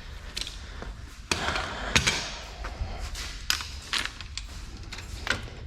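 Hand tools clinking and knocking against metal while suspension bolts are worked loose: about six sharp, irregular knocks.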